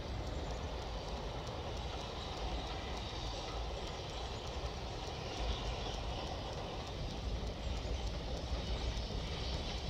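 Tweetsie Railroad No. 12's narrow-gauge steam train running along the track behind the trees, a steady rumble of the locomotive and cars.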